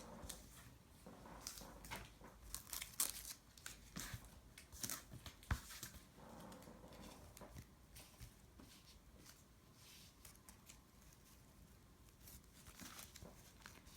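Faint rustling, crinkling and light clicks of trading cards and plastic card sleeves being handled and laid out, busiest in the first half and sparser after.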